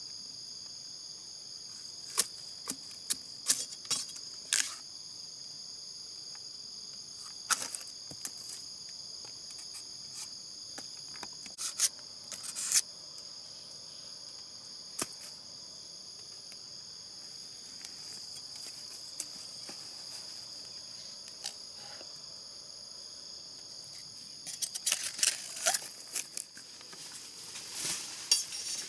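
Steady high-pitched insect chorus, several unbroken tones held throughout, with scattered sharp clicks and snaps and a busier run of clicks and rustling near the end.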